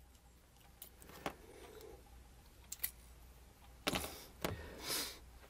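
Faint handling noise and small clicks as alligator test clips are unclipped from a small plastic-cased battery cell and put down, with two sharper clicks about four seconds in.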